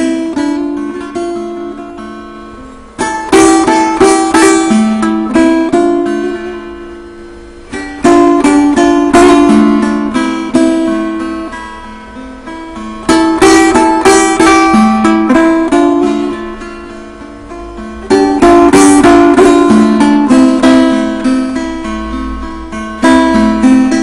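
Kopuz, a Turkic plucked lute, played solo in a free improvisation: a loud strummed phrase starts about every five seconds and fades, with single plucked notes running between.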